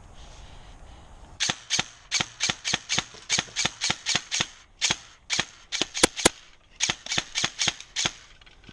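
Airsoft gun firing semi-automatic, a rapid string of sharp shots at about three a second, with two louder, sharper cracks close together about two-thirds of the way through.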